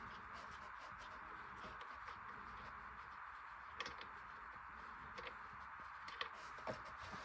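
Engine oil pouring in a steady stream from the opened drain plug of a 2025 Chevrolet Traverse RS into a drain pan: a faint, even hiss with a few light clicks.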